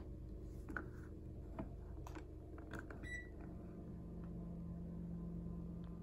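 A few soft clicks of remote-control buttons being pressed, then one short high beep from the Panasonic room air conditioner as it accepts the cooling command, followed by a low steady hum that sets in just after.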